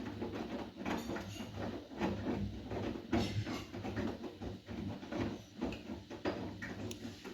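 Bosch WGA252Z0TR front-loading washing machine mid-wash: the drum turning and tumbling wet laundry, with irregular soft knocks and water sloshing.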